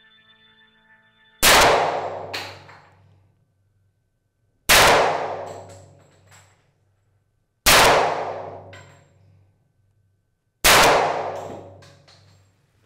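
A custom 1911-pattern .45 pistol fired four times, slowly and about three seconds apart. Each shot rings out and dies away over a couple of seconds, and a lighter click follows each one about a second later.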